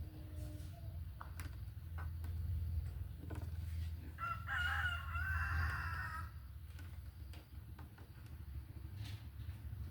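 A rooster crows once, about four seconds in, in a single call lasting about two seconds. A steady low hum and scattered small clicks run underneath.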